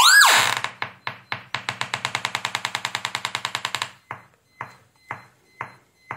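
Small speakers driven by a car audio power amplifier play a test tone from a phone tone generator. The tone glides up and drops sharply, then breaks into a fast, even train of clicks, about ten a second. About two-thirds of the way in the clicks slow to about two a second: the test frequency has been taken down to a few hertz, so each cycle is heard as a click.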